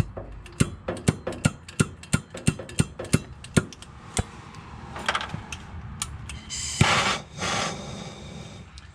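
Irregular sharp clicks and taps, about three a second for the first four seconds, then a hiss lasting about a second, from work on a brass radiator being soldered with a torch.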